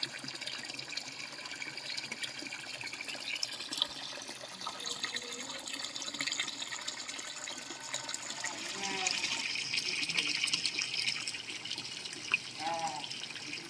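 Steady running water, swelling for a couple of seconds just past the middle, with faint voices in the background.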